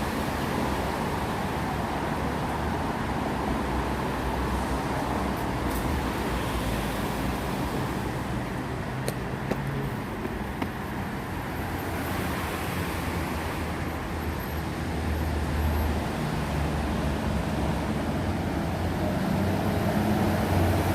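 Steady vehicle and road noise with a low rumble, with two faint clicks partway through.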